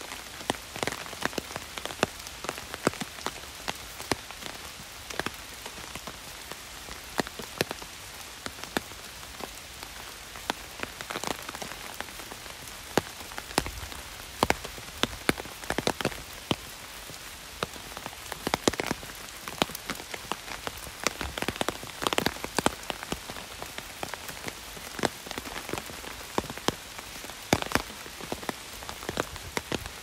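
Heavy rain falling on an umbrella: a steady hiss with many irregular sharp taps of drops striking the canopy.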